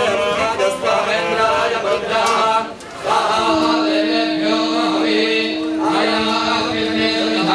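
Male priests chanting Vedic mantras together in a sing-song group recitation for a homa fire ritual, with a brief break near the middle. A steady held tone joins under the chant about three and a half seconds in.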